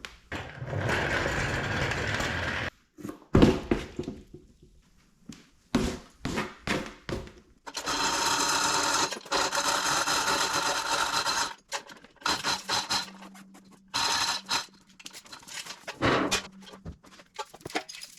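Shop handling noises around a 396 big-block Chevy engine being lowered onto a tire and blocked up: metal clanks, knocks and scrapes, broken by several stretches of steady noise a few seconds long.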